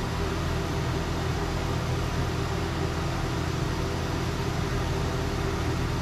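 Haas VF-2SS CNC vertical machining center running steadily, a steady hum and hiss as the spindle turns a chamfer tool that is only lightly touching the edge of the part.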